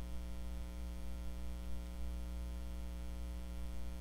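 Steady electrical mains hum: a low buzz with a stack of evenly spaced overtones, unchanging throughout.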